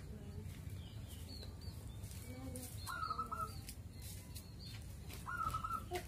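Caged zebra doves (perkutut) cooing among the high, short chirps of small birds. Two louder held calls stand out about three and five seconds in.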